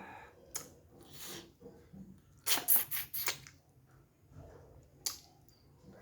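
Close-up eating noises from a person eating a cooked snapper head: scattered wet mouth clicks and smacks, with the loudest cluster of short noisy sounds from about two and a half to three and a half seconds in.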